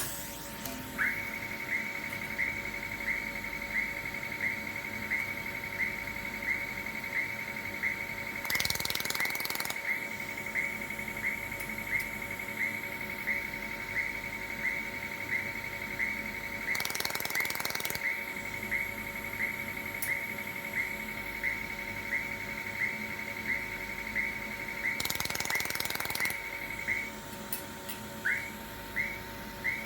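Pulsed YAG laser welder firing about two shots a second, each pulse a short high tick, over a steady machine hum. Three times a hiss lasting about a second breaks in, and the pulses pause briefly near the end before resuming.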